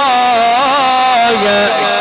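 A male Quran reciter holding one long drawn-out vowel in melodic Egyptian mujawwad recitation into a microphone. His voice winds up and down in quick ornaments and steps down to a lower pitch past the middle.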